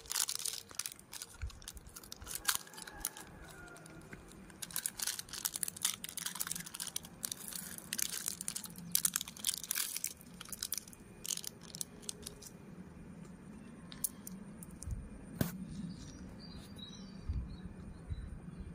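Crinkling and tearing of a small plastic candy wrapper being pulled open by hand, in many quick crackles through the first dozen seconds, thinning out later, with one sharp click about fifteen seconds in.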